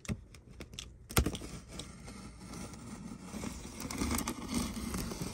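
Utility knife blade cutting along the packing-tape seam of a cardboard box: a steady scratchy slicing of blade through tape and cardboard, with a sharp tap about a second in.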